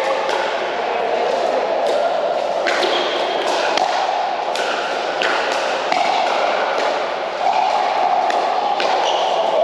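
Pickleball paddles hitting a plastic ball in a rally: a string of sharp pocks, roughly one a second, that ring in a large hall over a steady background din.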